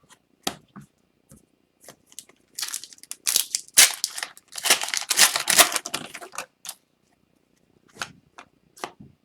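The wrapper of an Upper Deck hockey card pack crinkling and tearing open for about four seconds, with scattered clicks of cards being handled before and after.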